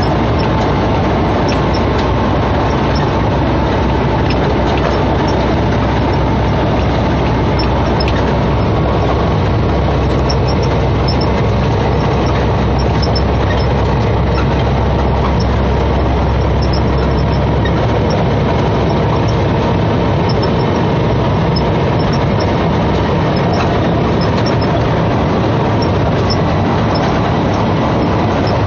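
Semi-truck's diesel engine and road noise from inside the cab while driving, a steady rumble and hiss. The low rumble eases a little past halfway.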